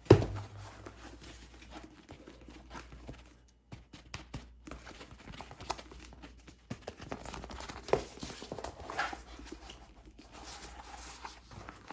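A thump right at the start, then scattered rustles, soft taps and clicks of a tightly rolled diamond-painting canvas being unrolled and handled on a table.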